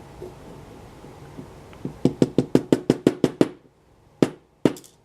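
A rapid run of about nine sharp knocks, some six a second, then two single knocks a little later. It sounds like a lock being tapped against a hard surface to shake a pin or spring out of its chamber.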